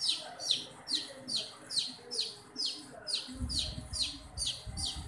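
A baby chicken chick peeping steadily: short, high calls, each falling in pitch, about two or three a second.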